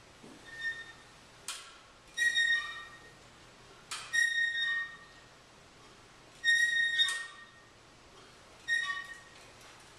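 A series of short, high whistle-like tones, each about half a second long and most opening with a sharp click, coming roughly every two seconds.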